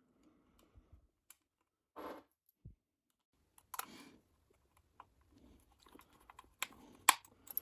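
Scattered small plastic clicks and taps from a computer mouse being handled and fitted back together, with the sharpest two clicks near the end.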